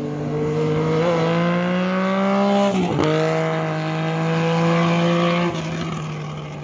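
Motorcycle engine accelerating, its pitch climbing, dropping sharply at a gear change about three seconds in, then climbing again before dying away near the end.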